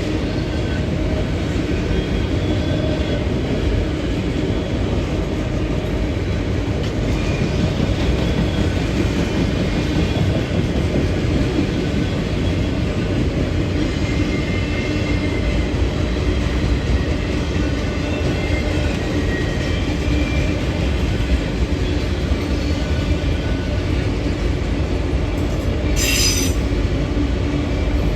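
A train rolling past: a steady loud rumble of wheels on rail, with faint high-pitched wheel squeals coming and going and one short, louder squeal near the end.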